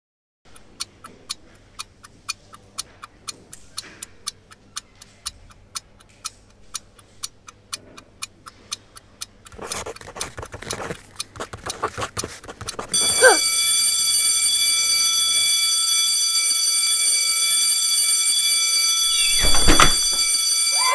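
A clock ticking about twice a second, with the sounds growing busier and louder for a few seconds. About 13 seconds in, a long steady ringing tone starts and holds, with a brief low swell near the end.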